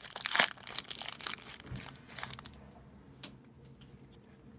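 Foil wrapper of a Panini Certified trading-card pack crinkling and tearing as it is pulled open by hand, dying down after about two and a half seconds.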